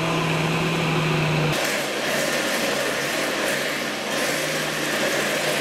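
Countertop blender running steadily, blending liquid cake batter. Its motor hum drops slightly in pitch about a second and a half in, while the whirring grows brighter.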